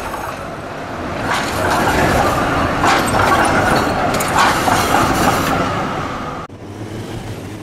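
Articulated electric tram rolling past close by on curved track through a junction, the steady wheel-on-rail rumble building up over the first two seconds, with a few knocks about a second and a half apart as the wheels cross the points and track crossings. The sound drops away abruptly about six and a half seconds in.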